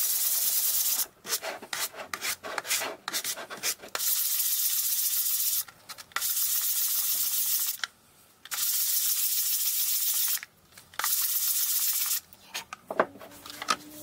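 Hand sanding a wooden block with a sanding block: sandpaper rasping over the wood in stretches of steady rubbing a second or two long, with a run of short, quick strokes between about one and four seconds in.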